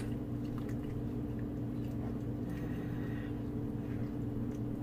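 A spatula stirring vegetables in a pan over a gas flame, with light scattered clicks of the spatula against the pan, over a steady low hum.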